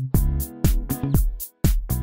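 Electronic dance intro music with a steady quick beat, about four hits a second, over a bass line and chords. It cuts out for a moment about one and a half seconds in.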